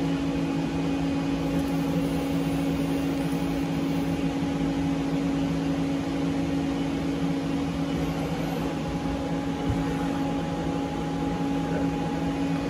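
Mori Seiki ZT 1000Y CNC lathe humming steadily at idle, a low even hum with a couple of held tones and no change in pitch.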